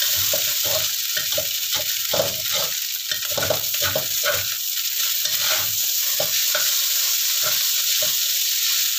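Rice vermicelli sizzling in a hot wok while a metal spatula scrapes and tosses it, a couple of strokes a second at first and only a few after about six seconds. The noodles are being fried hard so they scorch a little and form a crust.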